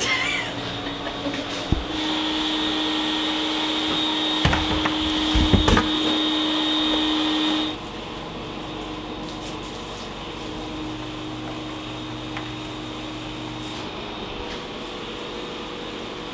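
A steady electric motor running with a high whine, with a few knocks partway through; about eight seconds in it drops to a quieter, lower steady hum.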